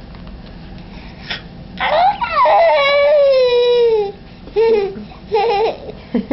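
Five-month-old baby fussing: one long whiny cry about two seconds in that slides slowly down in pitch, followed by a few short whimpers.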